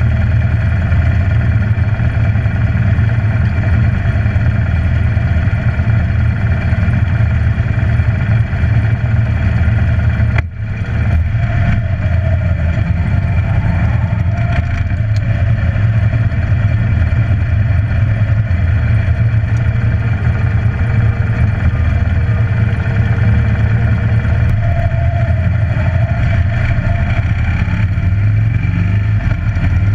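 Harley-Davidson Electra Glide's V-twin engine running steadily as the motorcycle rides off across gravel and onto a paved road, with a brief dip in the sound about ten seconds in.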